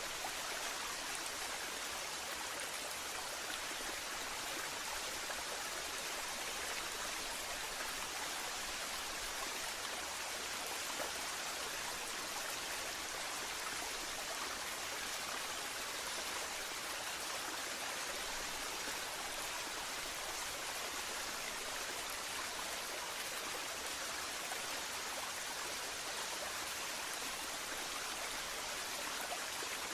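Waterfall: steady rush of falling and splashing water, even and unbroken.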